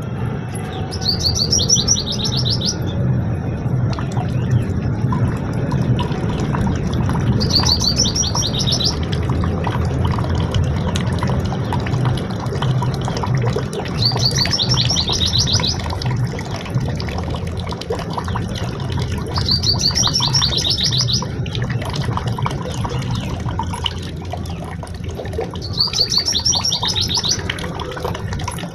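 A bird repeating the same short, fast trilled song phrase five times, about every six seconds, over a steady low rumble.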